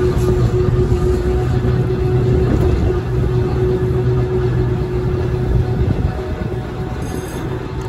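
Volk's Electric Railway car heard from on board as it runs along the track: a steady low rumble of wheels on rail with a steady whine over it that fades near the end.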